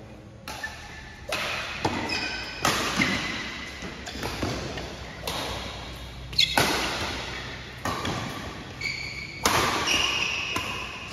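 Badminton rackets striking a shuttlecock back and forth in a rally, a sharp smack about once a second that echoes in a large hall, with short shoe squeaks on the court floor in between.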